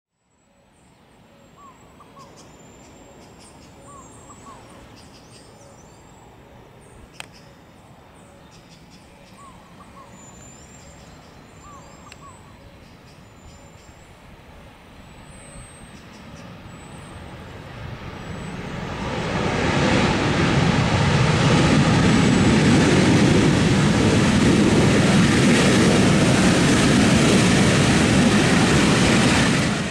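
Quiet outdoor background with small repeated chirps and a single click, then the roar of a Boeing 737-800's CFM56-7B turbofan engines building from about 17 s into a loud steady rush as the jet rolls out after landing under reverse thrust on a wet runway; it cuts off abruptly at the end.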